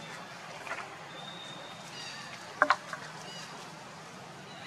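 Outdoor forest ambience: a steady hiss and low hum, with faint high bird calls. A little over halfway through come two quick, sharp clicks close together, the loudest sounds.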